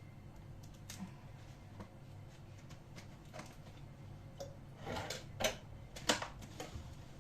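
Scattered light clicks and taps of olives, a knife and a dish being handled, with a few sharper taps in the second half.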